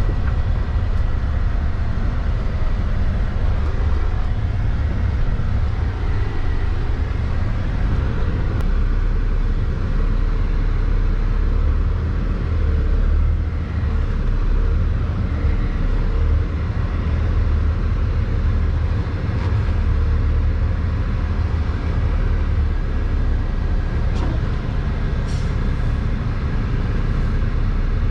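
Loaded grain semi truck driving, its diesel engine and road noise making a steady low rumble.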